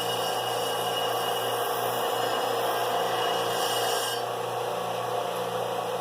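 An electric power tool running steadily. A high whine and the upper hiss over its motor hum cut off about four seconds in.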